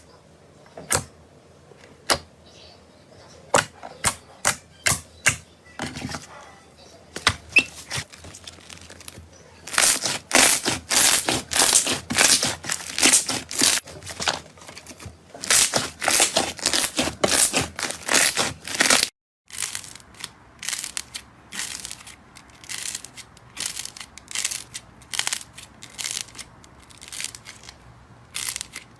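Slime being squeezed and poked by hand, giving crisp clicks and crackles in quick succession, sparse at first and densest through the middle, broken off for a moment about two-thirds of the way through.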